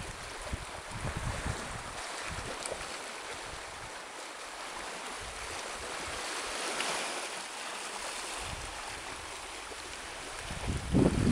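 Small waves washing over rocks and pebbles along a rocky shore, an even hiss that swells about two-thirds of the way through. Wind buffets the microphone in low gusts, most strongly just before the end.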